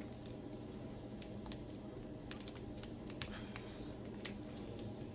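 Faint, irregular light clicks and crackles of a plastic snack package being handled.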